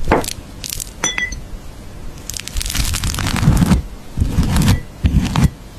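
A knife spreading a topping over crisp bread, in about four rasping scrapes. Just before them comes a single ringing clink, like metal tapping glass.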